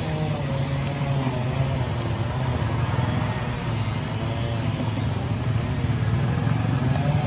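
A steady low drone, like a motor running, with a faint wavering pitch above it and a thin high whine.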